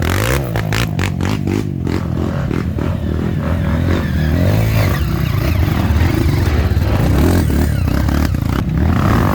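Off-road trail motorcycle engine revving up and down, with clattering knocks in the first couple of seconds.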